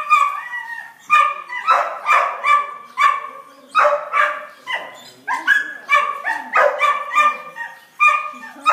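A dog barking over and over, short, high, sharp barks coming roughly two a second.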